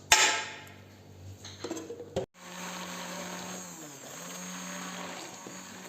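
A splash as water goes in, then an electric blender running steadily, blending watermelon, carrot and water into juice; its motor pitch dips briefly about halfway through and comes back up.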